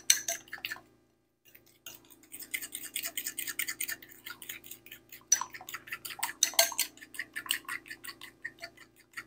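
A spoon stirring a thick ketchup and brown sugar glaze in a small glass bowl: rapid, rhythmic clicks and scrapes of the spoon against the glass, pausing for about a second near the start.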